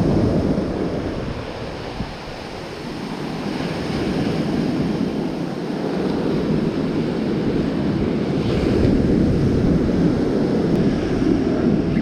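Ocean surf washing onto a beach, a steady rushing noise that eases a couple of seconds in and then builds again. Wind buffets the microphone.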